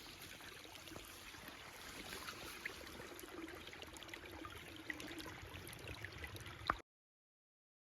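Faint running water of a stream, a steady trickle with small scattered clicks. A single sharp click comes just before the sound cuts off abruptly near the end.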